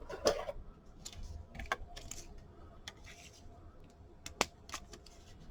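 Scattered light clicks and taps with faint rustling, as plastic card holders are picked through and handled; the sharpest click comes about four and a half seconds in.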